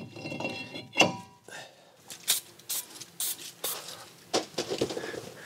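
Steel brake rotor clanking onto the wheel hub with a short metallic ring about a second in, followed by several sharp clicks and rustles of tools and a rag being handled in a metal pan.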